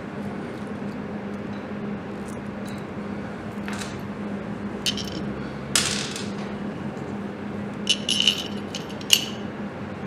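Light clicks and metallic clinks as a coil pack and its bracket are handled and offered up to the engine, the sharpest about six and nine seconds in, over a steady low hum.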